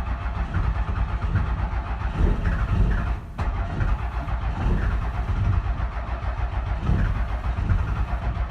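Cummins 12-valve 5.9 L inline-six diesel cranking on the starter in the cold, firing unevenly as it tries to catch, with a brief break about three seconds in. It is a hard cold start, which the owner suspects comes from the intake grid heater relays not all working.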